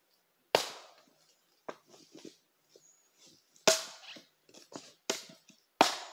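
Axe chopping into a wooden log round to split firewood: three loud, sharp chops about two seconds apart, with lighter knocks and cracks of wood between them.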